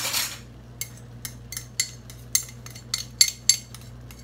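A spoon clinking and scraping against a small ceramic bowl, about a dozen sharp ringing clinks, as oyster sauce is scraped out of it into the frying pan. A short hiss at the very start.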